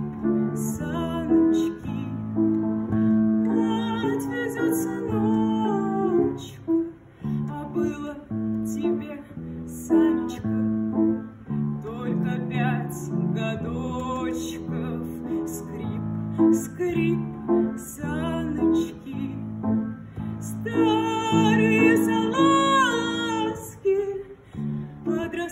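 Music: a guitar-like instrumental passage of strummed and plucked chords between sung verses, with a wavering melody line over it near the end.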